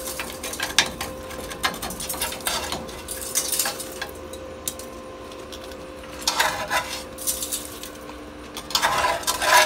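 Light metallic clinks and scrapes from hand tools picking and scraping at the rusted steel of a VW bus frame, in irregular bursts that are busiest about six and a half and nine seconds in, over a steady low hum.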